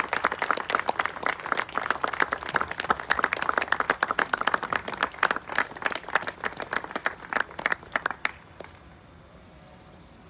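A crowd of guests clapping and applauding, the applause dying away about eight seconds in.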